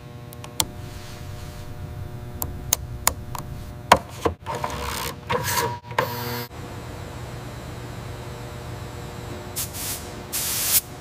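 Workshop sounds: scattered clicks and taps over a steady hum for the first six seconds or so. Near the end, a paint spray gun starts hissing in short bursts.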